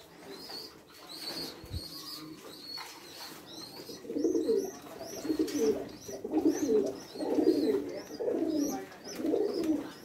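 Fantail pigeons cooing: a run of low, rolling coos repeating about once a second, starting about four seconds in, over a steady patter of short, high chirps.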